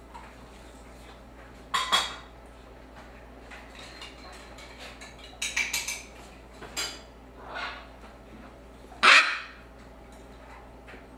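Young shamrock macaw chick giving short harsh calls in a handful of separate bursts, the loudest about nine seconds in: the begging calls of a hand-fed chick at feeding time.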